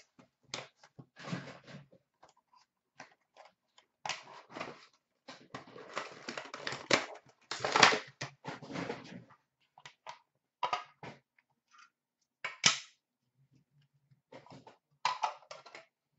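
Hands opening a box of hockey trading cards: irregular crinkling, scraping and clicking of cardboard and plastic packaging as the cards and a clear plastic card case are taken out, with several sharper snaps, the loudest near the middle.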